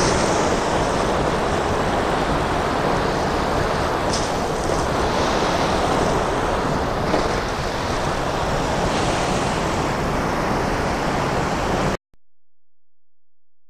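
Steady rushing noise of the ice-covered Great Falls of the Passaic River, with wind buffeting the microphone. It cuts off abruptly about twelve seconds in.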